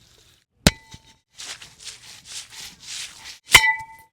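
A metal garden tool clangs sharply twice, ringing briefly each time, with a quick run of scraping strokes through soil between the two clangs.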